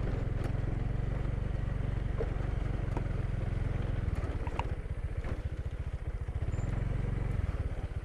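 Motorcycle engine idling with a steady low pulsing note, a few light clicks over it; the engine note dies away near the end.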